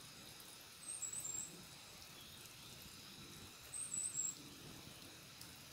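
A small bird's high-pitched chirping call, three quick falling notes, heard twice about three seconds apart, over a faint steady outdoor background.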